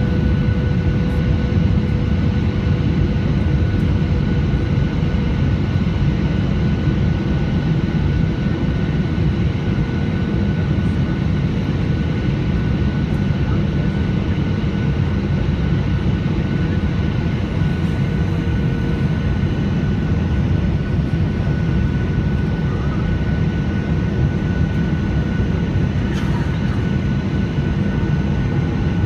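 Steady cabin noise inside a Boeing 737-800 in flight: a low rush of airflow and the hum of its CFM56-7B turbofan engines, with a few faint steady whining tones over it.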